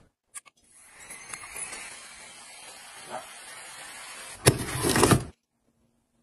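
Wearable neck fan blowing air: a steady airy whoosh after a short click, swelling louder for about a second near the end before cutting off suddenly.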